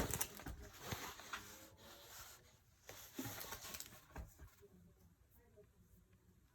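Soft rustling, crinkling and light taps of a diamond-painting canvas and its plastic cover film being handled, busiest in the first four seconds and then fading off.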